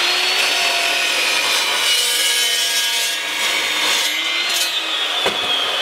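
Evolution S380CPS cold cut saw slicing through 1/8-inch-wall, 1.5-inch square steel tubing, a steady scraping cut over the motor's whine. The whine sags under load, picks up again about four and a half seconds in as the blade breaks through, then begins to wind down near the end.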